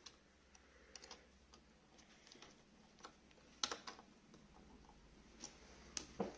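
Faint, scattered clicks and ticks of a small screwdriver working tiny screws into a plastic Beyblade launcher, with a few sharper clicks a bit past three and a half seconds in and just before the end.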